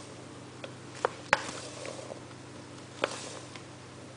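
Plain flour being poured into a mixing bowl of butter and sugar, with a few light taps and clicks from the handling, the loudest about a second in, over a faint steady hum.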